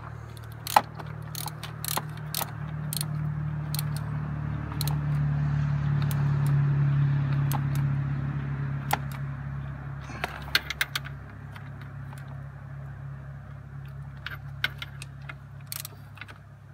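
Ratchet wrench and socket clicking and clinking in short, irregular bursts while the bolts of a plastic thermostat housing are snugged up, kept only moderately tight. A low hum swells through the middle and then fades.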